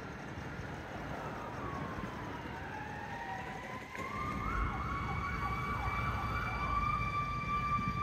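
Emergency vehicle siren: a slow wail gliding up and down, switching to a fast yelp about four seconds in, then settling on a steady high tone near the end.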